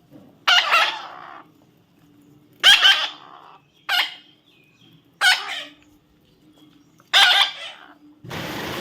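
Parrot giving five short, harsh screeching calls, spaced one to two seconds apart. A steady hiss comes in just before the end.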